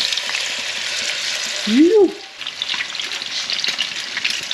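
Tusk fish fillets sizzling and crackling as they fry in hot oil in a frying pan, a second fillet just laid into the oil. About two seconds in there is a short voice sound that rises then falls in pitch.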